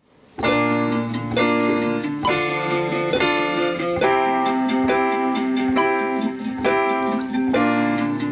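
Instrumental song intro on an acoustic plucked-string instrument: a chord struck about once a second and left to ring.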